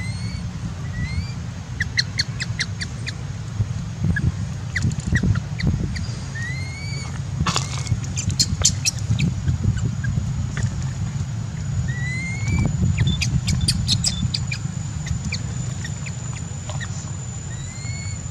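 Newborn macaque giving short, rising, squeaky cries, a handful spread through, over a steady low rumble and scattered sharp clicks.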